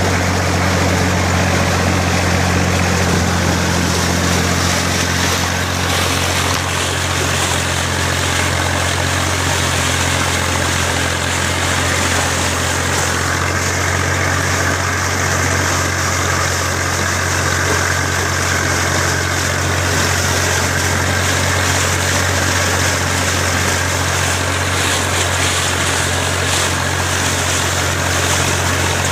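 IMT 533 tractor's three-cylinder diesel engine running steadily at constant speed.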